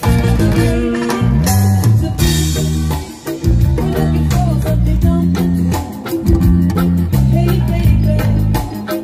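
Live band playing upbeat dance music: electric bass guitar, drum kit and timbales, with a brief break in the beat about three seconds in.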